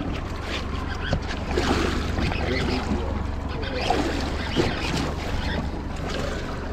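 Wind on the microphone and water around an offshore fishing boat, over a steady low hum.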